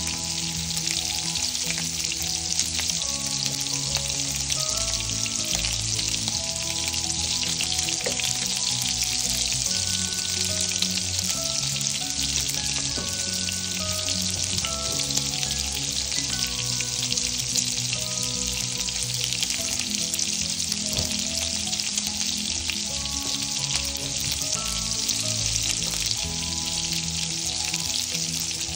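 Sliced sausage frying in oil in a pan: a steady sizzling hiss, with soft background music underneath.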